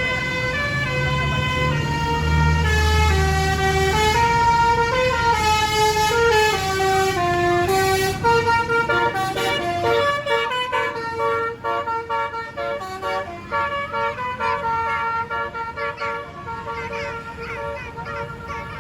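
A bus's basuri musical air horn playing a melody. For the first half it holds notes that step up and down in pitch; after that it plays quicker, short choppy notes. The bus's engine rumbles underneath early on.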